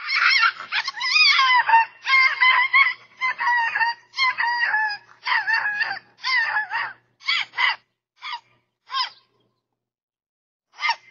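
Small dog yapping and yelping in a rapid run of high-pitched calls that thins out to a few short, spaced yaps, with a last one near the end.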